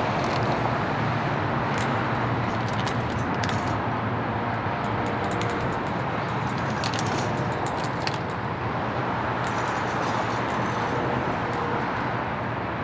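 Steady outdoor city ambience: a low, even hum of distant road traffic, with a few faint light clicks scattered through it.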